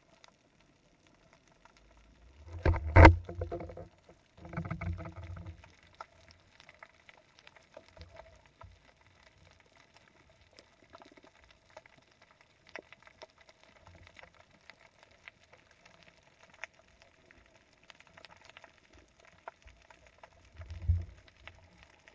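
Underwater sound picked up through a camera housing on a speargun: a faint bed of clicks and crackle with a steady faint hum. It is broken by dull thumps and knocks, the loudest and sharpest about 3 s in, a rumbling spell about two seconds later, and another thump near the end.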